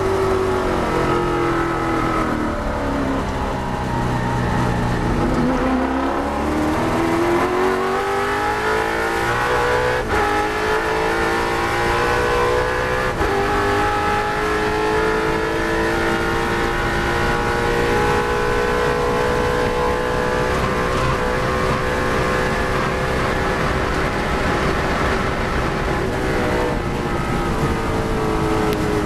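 Holden HQ Monaro V8 race engine heard from inside the cockpit: its note falls as the car slows for a corner over the first five seconds, then climbs under hard acceleration, with an upshift about halfway through. It then holds a long, high, slowly rising note running flat out, easing slightly near the end.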